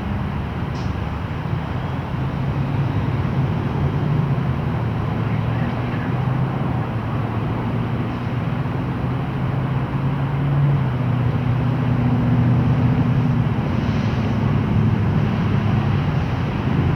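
Boeing 737-800's CFM56 turbofan engines heard in flight: a steady rumble with a low hum, growing somewhat louder about halfway through.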